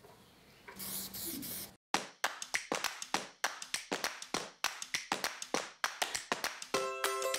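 A spray-paint can hissing for about a second, then a cut into steady rhythmic handclaps, about four a second, as the intro of a song. Guitar music joins the claps near the end.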